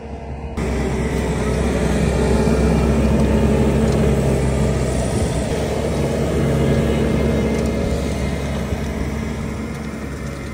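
Skid-steer loader's engine running steadily under load while driving a hydraulic ground-milling attachment; the sound starts abruptly about half a second in.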